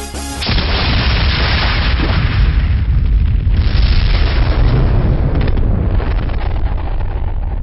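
Explosion sound effect: dance music cuts off about half a second in and a loud blast takes over as a long, low rumble that slowly fades over the last couple of seconds.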